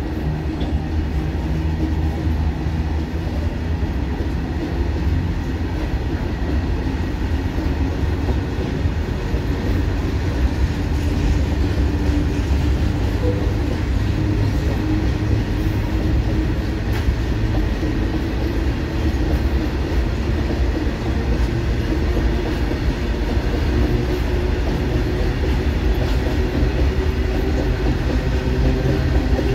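Indian Railways freight train's open-top wagons rolling past, the steel wheels rumbling and clattering over the rails in a deep, steady roll.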